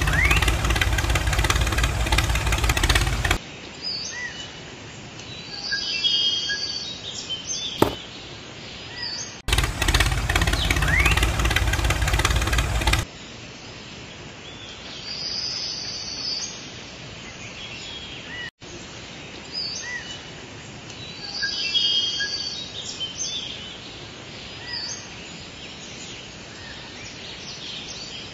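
Two stretches of a loud, steady motor running, the first stopping about three seconds in and the second lasting a few seconds near the middle. Between them is quieter outdoor ambience with birds chirping now and then.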